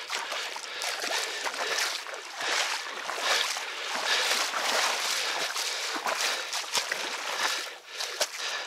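Uneven splashing and sloshing of water, with many short sharp splashes, as a big hooked common carp struggles near the surface on a hand line close to the bank.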